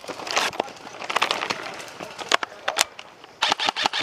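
Rustling and crunching movement through woodland brush with scattered sharp cracks. About three-quarters of the way in, an airsoft rifle starts firing a fast, even string of shots, about six a second.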